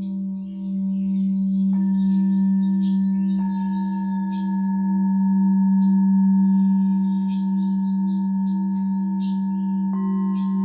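Singing bowls ringing: a loud, steady low tone with a slowly wavering, beating overtone, while higher bowls are struck about two seconds in, again at about three and a half seconds, and near the end, each ringing on. High chirping like birdsong runs over it throughout.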